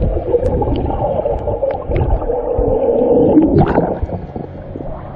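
Muffled underwater sound of churning surf, heard through a submerged camera: a dense, dull rush of water with scattered small bubble clicks. About four seconds in, the camera breaks the surface and the sound turns thinner and quieter.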